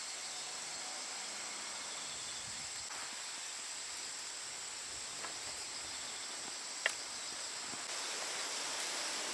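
Wood campfire burning quietly: a few faint ticks and one sharp crackle about seven seconds in, over a steady high hiss of outdoor background.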